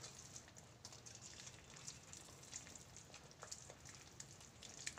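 Faint, irregular soft pops and ticks from a thick tomato gravy cooking in a steel pan while it is stirred with a wooden spatula.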